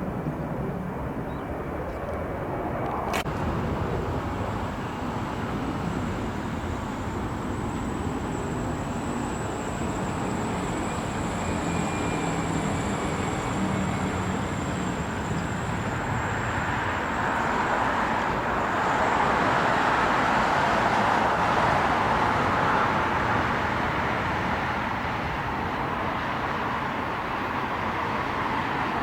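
Jet airliner's engines heard outdoors as it passes: a steady noise with a thin high whine that swells to its loudest about two-thirds of the way through, then eases. A single sharp click about three seconds in.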